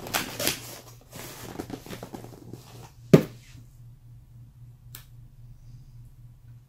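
Crackly rustling and small clicks of handling for about three seconds, then one sharp click, a fainter tick a couple of seconds later, and after that only a low steady hum.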